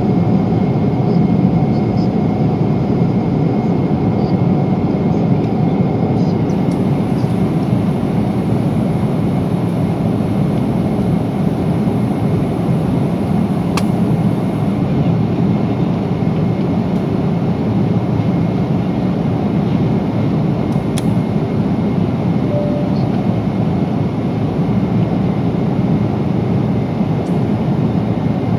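Steady cabin noise of a Boeing 777-300 cruising at altitude: the constant rush of airflow and the engines, heard from inside the cabin. A couple of brief sharp clicks stand out, one near the middle and one about two thirds of the way through.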